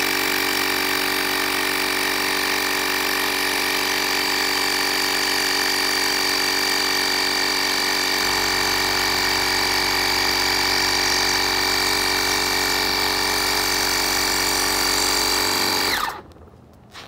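ROCGORLD R7 portable tire inflator's compressor running steadily with a constant hum and high whine while it fills an inflatable ball. Near the end it stops, its pitch dropping briefly as it winds down.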